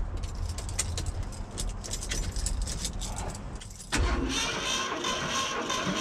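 Keys rattling and clicking at the ignition. About four seconds in, the starter begins cranking the Ford 460 big-block V8 with its spark plugs out, an abrupt, even churn of about four pulses a second, during a wet compression test with oil squirted into one cylinder.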